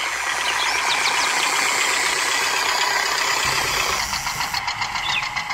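Tractor engine running steadily, a sound effect dubbed over a toy tractor driving along; near the end a fast, even ticking comes in over it.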